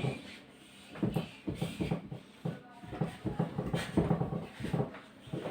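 Someone drinking Sprite in gulps: a string of short, irregular swallows, with a few sharp clicks from the bottle or glass, the loudest about four seconds in.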